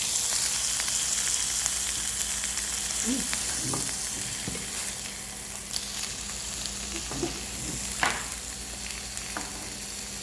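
Meat sizzling as it grills in a pan or on a grill plate, a steady hiss that is loudest at first and eases slightly. A few light taps come through, the sharpest about eight seconds in.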